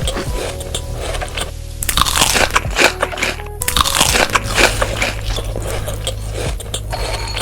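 Crunchy food being bitten and chewed close to the microphone, in a rapid run of crackling crunches that comes in bursts, over background music.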